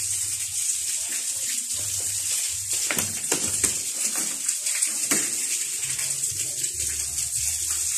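Steady hiss of running water, with a few short knocks about three and five seconds in.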